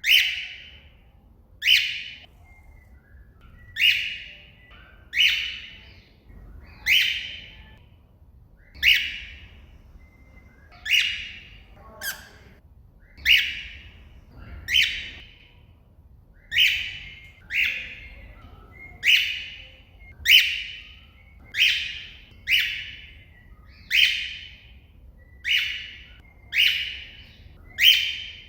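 Cockatiel giving its contact call over and over, a short, loud, high call every one to two seconds, calling out to another bird.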